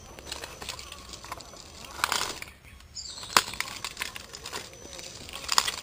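A small radio-controlled crawler pushes through dry leaves, twigs and undergrowth with crackling, rustling and scattered clicks. There is a louder rustle about two seconds in, a sharp snap a little after three seconds, and another rustle near the end as foliage brushes past.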